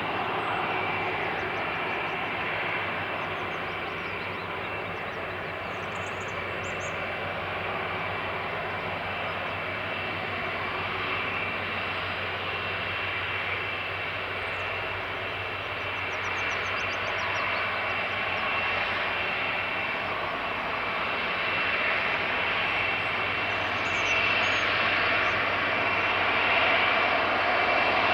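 Boeing 747-400 freighter's four jet engines running with a steady roar and a high steady whine on top, growing somewhat louder in the last third.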